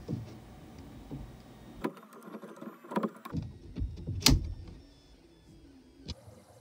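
A few sharp clicks and knocks as hands handle a 3D-printed plastic generator frame and its end cap on steel rods, about four taps spread out, the loudest a little over halfway through.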